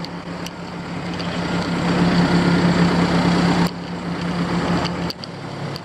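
Engine of a sheepsfoot compactor roller running steadily under load, growing louder over the first two seconds. The level drops abruptly about three and a half and five seconds in.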